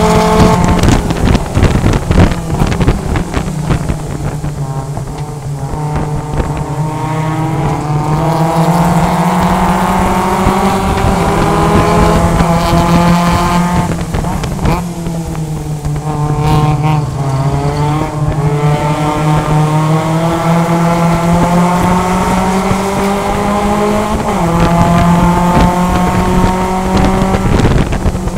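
Mazda MX-5 Cup race car's four-cylinder engine heard from inside the cockpit at racing speed. The note drops right at the start as the car brakes, climbs slowly for several seconds, drops again about halfway, climbs once more and steps up near the end.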